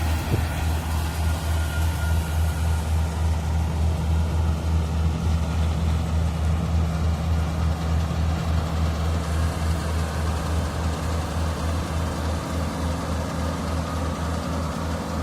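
Diesel engine of a Daedong DSC-62G half-feed combine harvester running steadily with a deep, even hum.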